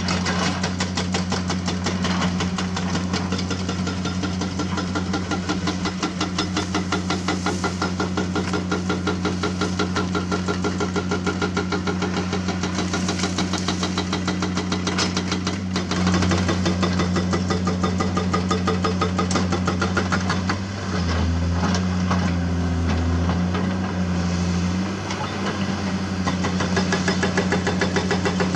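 Heavy hydraulic excavator's diesel engine running steadily with a rapid pulsing drone. It gets a little louder about halfway through, and later the note shifts for a few seconds and the level dips briefly.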